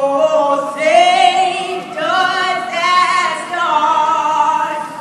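A singing voice holding slow, long notes of about a second each, with some vibrato, ringing with reverberation.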